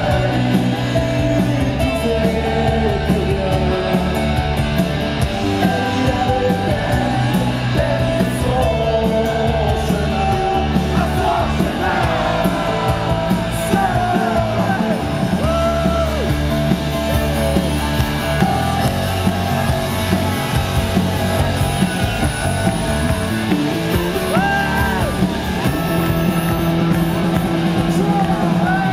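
Live rock band playing at full volume, with electric guitars, keyboards and drums, and a male lead voice singing over them.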